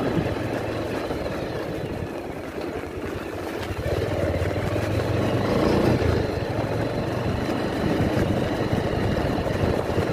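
Motorbike engine running while riding, with wind buffeting the microphone; it gets louder from about four seconds in.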